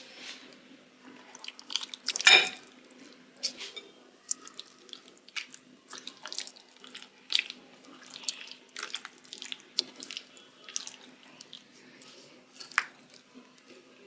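Irregular light clicks, taps and small splashes of kitchen work, with one louder knock about two seconds in, over a faint steady hum.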